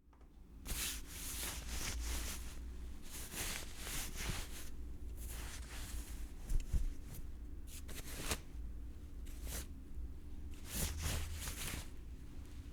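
Clothing and fabric being moved and rubbed together: a run of soft swishes and rustles, a second or less each, with a couple of sharper brushes in the middle.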